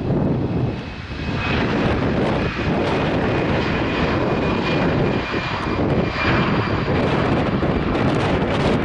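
Jet airliner's engines at close range, a loud steady rush with a faint high whine over it.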